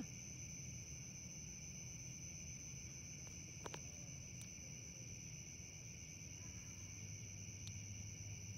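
Night insects, crickets among them, chirring in a steady, faint, high-pitched chorus, with a low rumble underneath and a single soft click a little before the middle.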